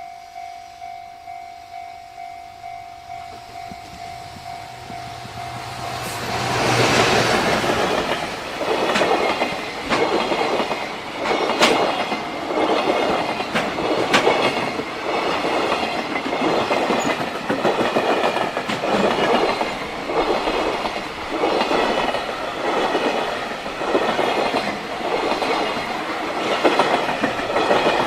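Level crossing warning bell ringing in a steady rapid beat. About six seconds in a long freight train arrives and passes, its wagons clattering over the rail joints about once a second.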